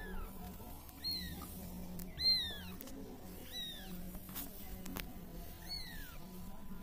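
Local Persian kittens mewing: a string of short, thin, high-pitched mews, each falling in pitch, a second or two apart.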